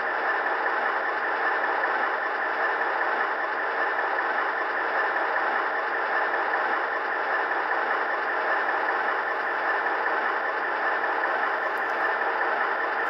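SoundTraxx Tsunami sound decoder in an HO-scale EMD E9A model locomotive playing a diesel engine at idle through the model's small onboard speaker, steady and unchanging, while the model crawls at its lowest speed step.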